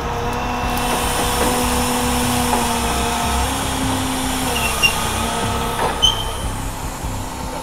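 Rollback tow truck's engine running steadily, its pitch rising for about a second near the middle. Two short sharp sounds stand out about five and six seconds in.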